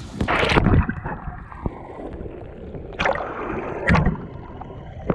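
Small waves breaking on a rocky shore and washing over a phone held at the waterline. The sound turns dull and gurgling as the water covers the microphone, with a splash about half a second in and more splashes about three and four seconds in.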